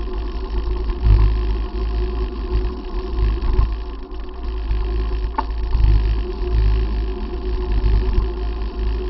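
Wind buffeting the microphone of a bicycle-mounted camera while riding along a road: a low, gusty rumble that swells and fades, with one sharp click about five seconds in.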